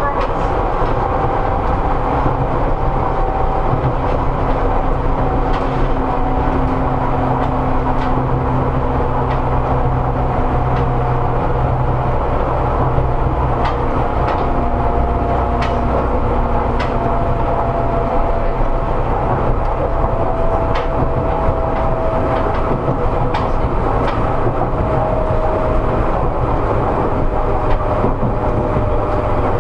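Seibu 101-series resistance-control electric train running, heard from inside motor car MoHa 247. Under a steady rumble, a whine slowly falls in pitch as the train loses speed, with scattered clacks of wheels over rail joints.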